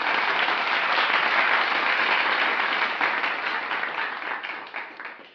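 Audience applause, a dense patter of many hands clapping that holds steady and then fades away near the end.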